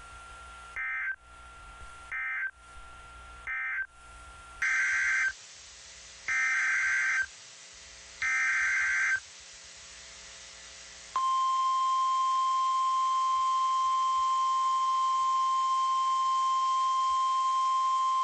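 Emergency Alert System SAME data tones: three short bursts of buzzing digital data (the end-of-message code), then three longer bursts (the header of the next alert). About eleven seconds in, the steady single-pitch 1050 Hz NOAA Weather Radio warning alarm tone starts and holds.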